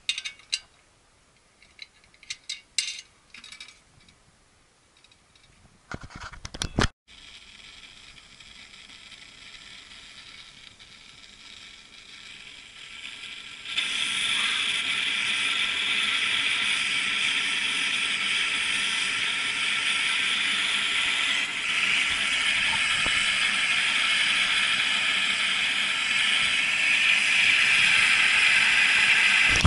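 Brass petrol blowlamp burning: its burner hisses steadily, much louder from about halfway, as the flame turns from yellow to blue. Before that, a few clicks and knocks as the lamp is handled.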